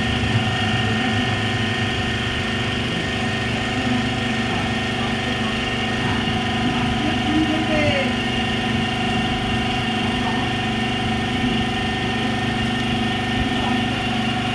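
A steady mechanical hum at a fixed pitch, running evenly without change.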